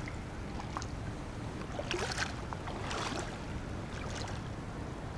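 Water sloshing and light splashing as a hooked pike is played close to the bank on a float rod, with a few brief splashes about two and three seconds in.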